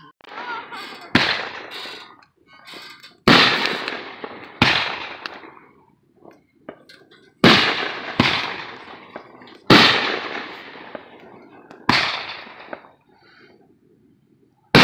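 Consumer aerial fireworks going off: about eight sharp bangs at uneven intervals, each trailing off over a second or so, with a loud one near the end.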